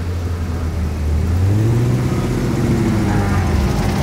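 Car engine and exhaust as a car rolls by at low speed, the engine note picking up about a second and a half in and easing off near the end.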